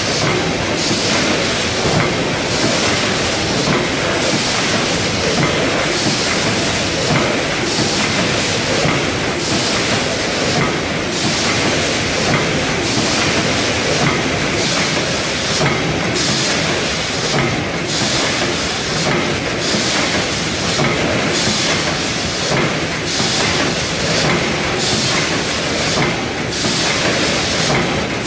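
Sejin Tech ST-8A1D rotary pouch packing machine with its multihead computer scale, running and filling pouches of puffed rice: a steady mechanical clatter with a rhythmic hiss about once a second.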